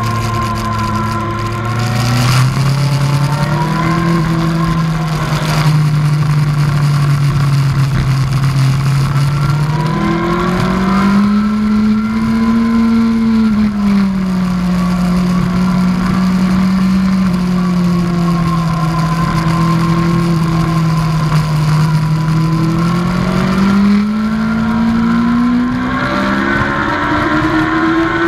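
2003 Yamaha R1's inline-four engine under way on track, its note climbing and falling with the throttle and highest near the end, under wind rush on a helmet-mounted camera.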